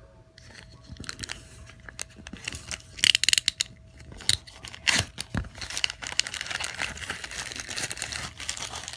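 A padded plastic mailer being handled and torn open: crinkling and crackling plastic, with loud bursts about three and five seconds in, then a longer spell of tearing and rustling near the end.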